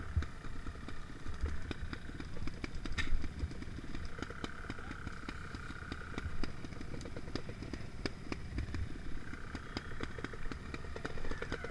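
Trials motorcycle engines running at low revs as the bikes pick their way slowly along the trail, with one sharp knock about three seconds in.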